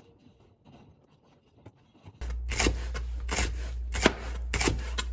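Faint handling noise, then about two seconds in a low hum starts with a run of sharp, irregular clicks and taps over it.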